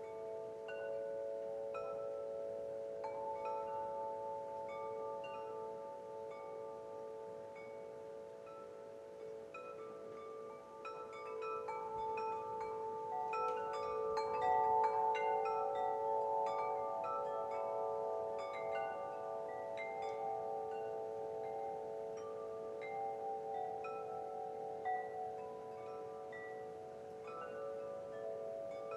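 Wind chimes ringing: several long, overlapping metal tones with scattered higher strikes, busiest and loudest about halfway through.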